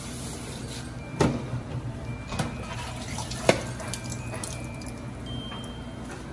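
Kitchen faucet running into a stainless steel sink while a platter of carrot and celery sticks is rinsed under the stream. Three sharp knocks come as the dish is handled, about one, two and a half, and three and a half seconds in, the last being the loudest.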